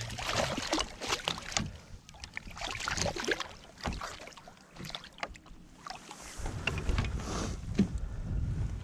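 Smallmouth bass splashing and thrashing at the water's surface right beside a kayak as it is brought to hand, with sharp splashy clicks that are busiest in the first couple of seconds. It goes quieter in the middle, and a low rumble comes in near the end.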